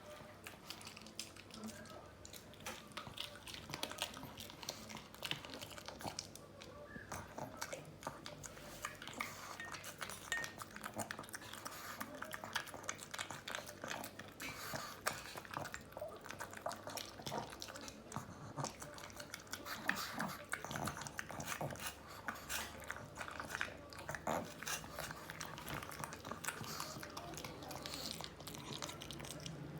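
A pug chewing and eating chicken meat, its mouth making dense, irregular clicks and smacks bite after bite.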